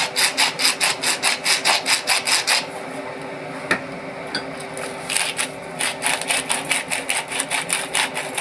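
Hand-turned salt and pepper mill grinding over a bowl, in quick rasping strokes of about five a second. It grinds for about two and a half seconds, pauses for about two seconds, then grinds again from about five seconds in.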